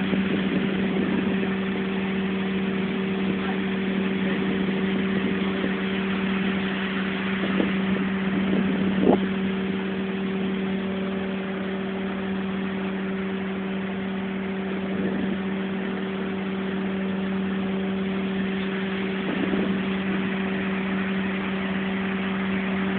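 Steady engine drone from a fishing boat's machinery: a constant hum over a hiss, with a couple of brief knocks about eight and nine seconds in.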